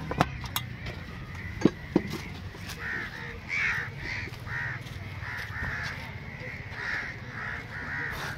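Crows cawing over and over, about two calls a second, starting about three seconds in. Before that come a few sharp metal clinks from the aluminium momo steamer and a steel serving plate being handled.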